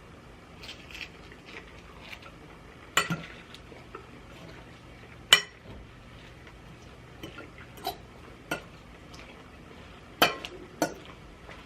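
Cutlery clinking and scraping against a dish while eating: about eight sharp, scattered clicks, the loudest about five seconds in and again near ten seconds.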